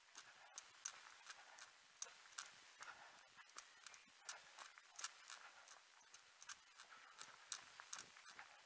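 A runner's footsteps: feet striking the ground in a steady rhythm of about two to three strides a second, heard as faint, sharp ticks.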